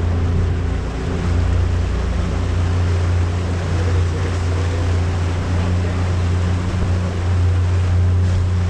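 Small Aquabus passenger ferry under way: its engine runs with a steady low hum, under a constant rush of water and wind.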